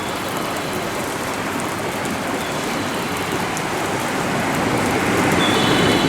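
Steady hissing noise at a station platform, with an approaching train's running noise swelling over the last two seconds as it comes in.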